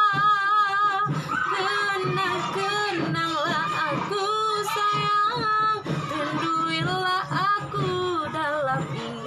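A woman singing a Malay song in an ornamented style, with long held notes that waver and bend between pitches, over backing music with a regular low beat.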